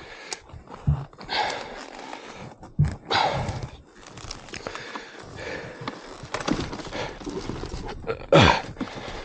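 A man breathing hard in heavy, irregular breaths while straining at physical work, with a few short knocks in between.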